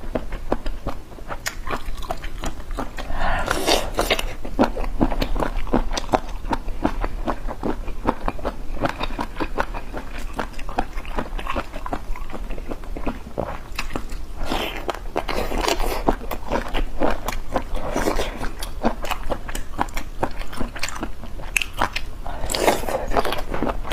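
Close-miked eating of spicy squid heads: continuous wet, sticky chewing clicks of mouth and teeth, with several louder bites or slurps every few seconds. A steady low hum runs underneath.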